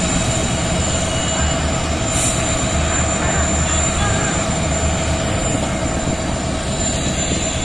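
Diesel locomotive engine running at a steady idle, a continuous drone with a constant whine over a low rumble.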